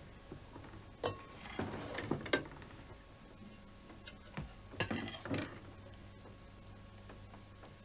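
Ladle and spoons clinking against a metal pot and plates as porridge is served: a cluster of short clinks about a second in and another around five seconds in, over a low steady hum.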